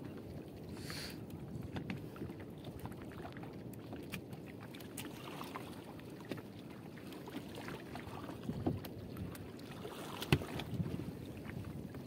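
Gill net being hauled in by hand over the side of a wooden fishing boat: scattered small knocks and rustles of mesh and fish against the hull, over a steady low rumble.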